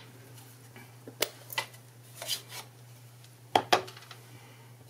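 Hard plastic clicks and taps from a stamp pad and a clear acrylic stamp block being handled: a few scattered taps, with a louder double click about three and a half seconds in.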